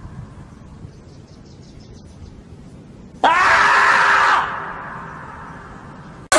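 The meme scream of the 'screaming marmot' clip: after about three seconds of faint hiss, one sudden loud, held scream that lasts just over a second, then fades away over about two seconds.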